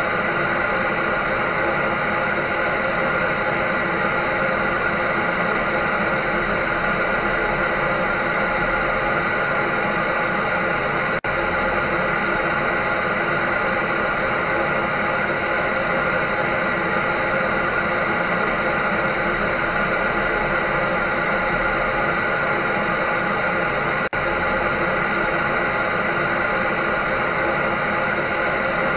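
Electric dryer running steadily: an even rush of air over a constant motor hum with several fixed tones. The level dips very briefly about 11 seconds in and again about 24 seconds in.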